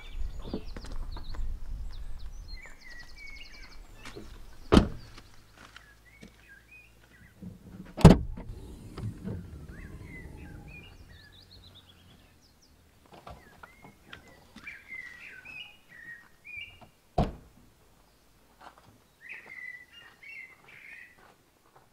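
A hatchback car's doors and boot lid being shut, three loud thuds about five, eight and seventeen seconds in, the middle one loudest. Small birds chirp and sing in between.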